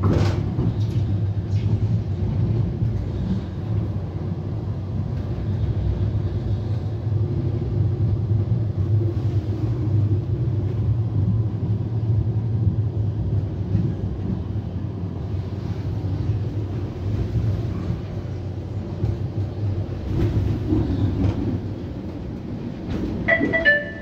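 Steady low rumble inside a moving STIB TNG tram: wheels and running gear on the rails, heard from the passenger cabin. A short pitched tone sounds near the end.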